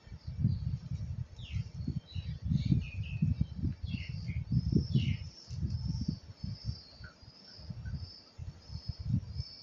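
Irregular low bumps and rustles from small plastic camera-mount parts being handled. Behind them, birds chirp, short scattered chirps at first, then a rapid repeating high chirp from about halfway.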